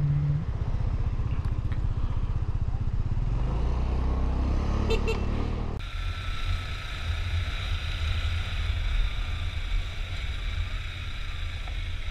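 Bajaj Pulsar NS150's single-cylinder engine running at low revs, then, after an abrupt change about six seconds in, steady riding noise from the bike with a constant hiss.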